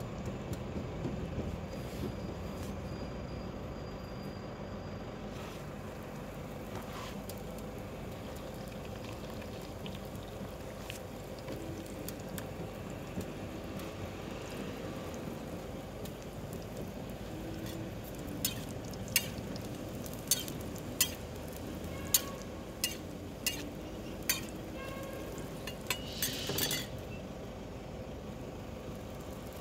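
Roti dough being worked on a greased steel counter and griddle: a steady background hiss, and about two-thirds of the way in a run of around ten sharp smacks, each under a second apart, as the dough is slapped and stretched.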